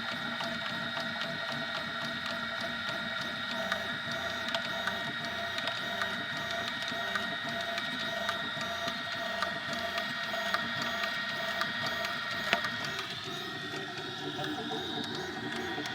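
Easythreed X2 3D printer at work: its stepper motors whine steadily as the print head moves, with small ticks. The whine changes pitch about thirteen seconds in as the moves change.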